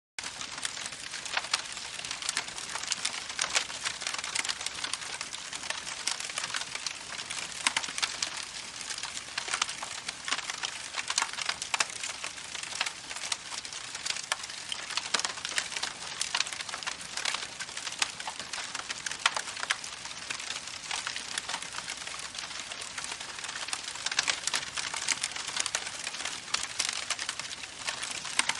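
Campfire crackling with frequent sharp pops and snaps over the steady rushing hiss of a babbling creek.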